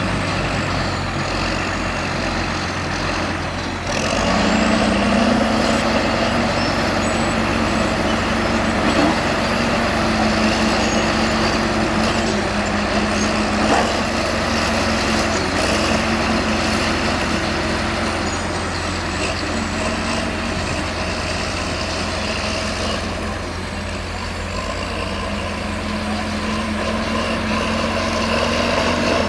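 Heavy diesel engine of earthmoving machinery running continuously. Its pitch rises about four seconds in, holds there, and drops back around two-thirds of the way through.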